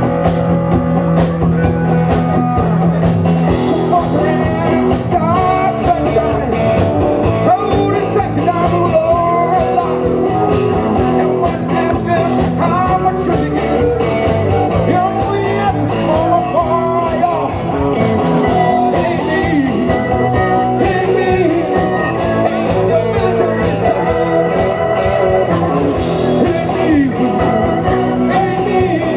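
Rock and roll music with a singer and guitars over a steady beat.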